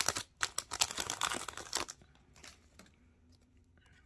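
Foil wrapper of a Panini Contenders baseball card pack crinkling and tearing as it is pulled open by hand, for about two seconds. After that come only faint rustles as the cards are taken out of the pack.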